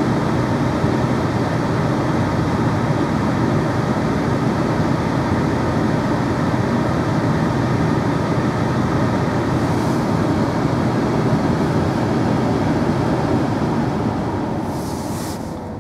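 Ford Escape's climate-control blower fan running at full speed, a steady rush of air through the dash vents; it is turned down near the end and the rush falls away.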